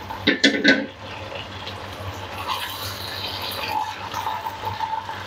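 Potato slices in a thin masala gravy simmering and sizzling in a karahi as a spatula stirs them, a steady hiss. A short louder burst of sound comes about half a second in.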